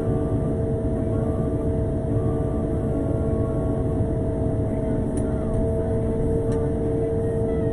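Road sweeper running as it drives: a steady low rumble with a constant whine of two even tones, unchanging throughout.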